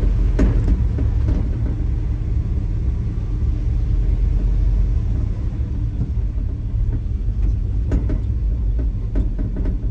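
LS-swapped 1977 Ford F-150 driving on the road, heard from inside the cab: its GM LS V8 and the road make a steady low rumble. A few short knocks come just after the start and twice near the end.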